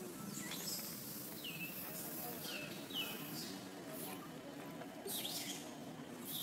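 Short high-pitched animal chirps, each dropping quickly in pitch, repeated several times over a steady outdoor background.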